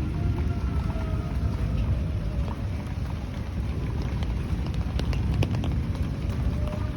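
Wind buffeting the microphone in a steady low rumble, with the faint wail of a distant outdoor tornado-warning siren fading out in the first second or two. A few sharp ticks sound about five seconds in.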